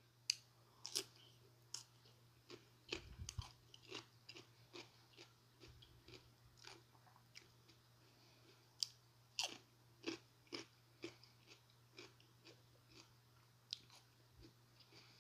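Fresh cucumber slices being chewed: faint, scattered crunches and mouth clicks at an irregular pace.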